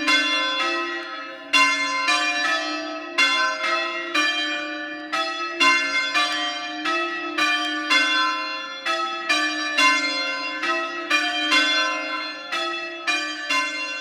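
A ring of three Mears church bells, the tenor about 231 kg in C, rung full-circle. The strikes follow each other in an even sequence of about two a second, with a slightly longer gap now and then, and each strike rings on into the next. The bells are very loud.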